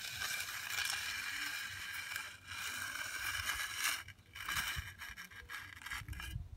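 Steel hand edger scraping along a construction joint in fresh concrete: a steady gritty scrape for about four seconds, then shorter, broken strokes.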